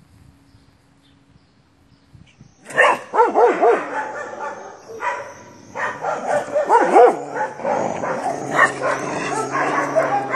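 A dog barking rapidly and repeatedly, mixed with higher yips, beginning about two and a half seconds in after a quiet start.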